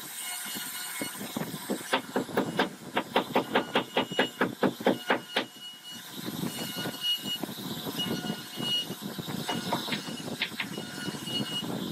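CNC router spindle cutting into a wooden board, a steady machine noise with a high tone. From about two seconds in, a fast run of sharp knocks, about five a second, lasts for three to four seconds and is the loudest part, then the steady cutting sound goes on.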